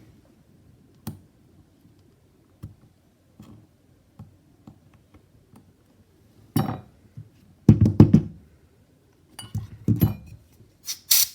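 A small tool picks and pries at cracked iPhone 11 rear camera lens glass: scattered light taps and clinks, then a few louder clusters of knocking and scraping in the second half, and a short hiss near the end.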